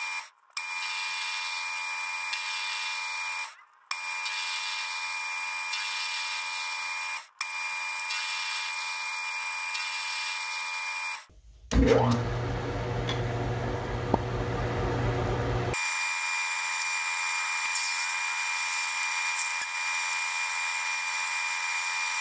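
Metal lathe running while a twist drill in the tailstock chuck bores into a workpiece spinning in a four-jaw chuck: a steady machine buzz with a thin high tone. It cuts off briefly three times, and about twelve seconds in it turns lower and fuller for roughly four seconds.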